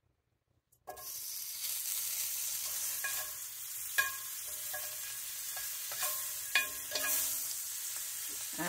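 Butter sizzling and spattering as it melts in a cast-iron skillet that is running too hot, the sizzle starting suddenly about a second in. A utensil clicks and scrapes against the pan a handful of times as the butter is pushed around.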